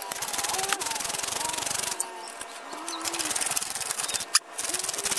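Ratchet wrench clicking as it turns the 15 mm bolts holding a truck's front wheel hub to the steering knuckle, with two sharp metallic clicks, one near the start and one about four seconds in.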